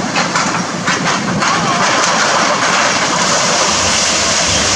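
Tracked excavator running while its demolition grapple tears into a building, with several sharp clanks and knocks of breaking debris in the first second and a half, then a steady rushing hiss over the engine's low running.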